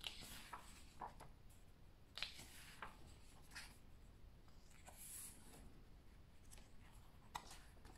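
Faint rustles and swishes of glossy pages being turned by hand in a thick hardcover comic-book omnibus, about half a dozen short ones, the sharpest a little after two seconds in.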